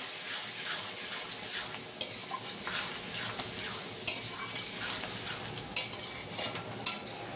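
Metal spatula stirring and scraping a thick sauce and vegetables around a metal wok, with spatula knocks against the pan and a sizzle of frying underneath. The knocks come in clusters, most of them near the end.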